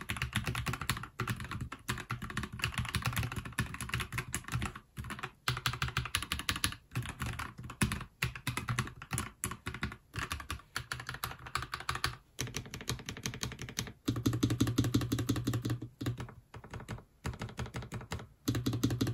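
Fast, continuous typing on a NuPhy Halo75 mechanical keyboard: a dense run of key clacks with a few brief pauses.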